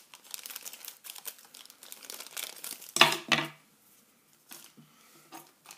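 Crinkling of a foil blind-bag wrapper and its plastic inner bag being handled and pulled open, in quick crackles. A brief loud voice-like sound about three seconds in, then fainter rustles.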